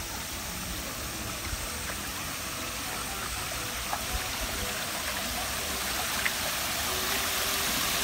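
Water spilling over small stone cascades into a shallow wading channel, a steady rush that grows gradually louder toward the end. A light splash or two from a child's feet wading in the shallow water.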